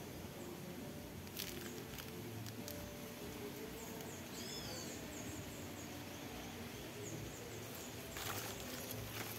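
Quiet outdoor ambience with a bird's short whistled call about halfway through and faint high ticking. Near the end there is a rustle of leaves being handled.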